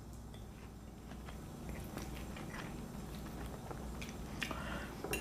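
A person chewing a mouthful of steak salad close to the microphone: soft, quiet mouth sounds with a few faint clicks.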